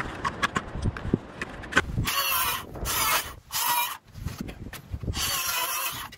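Light knocks and scrapes as nails are pulled from a scrap board with a claw hammer, then a Makita circular saw cutting the board ends in four short bursts of loud hissing noise.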